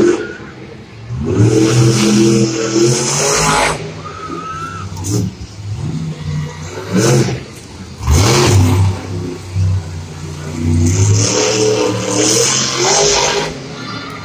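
El Toro Loco monster truck's supercharged V8 engine revving hard in three long loud bursts, rising and falling in pitch as the truck drives and heads for a jump.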